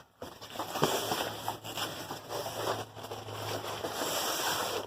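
Paper and packaging rustling and crinkling as items are handled and pulled from a shipping box, with a few sharper crackles and a low steady hum underneath.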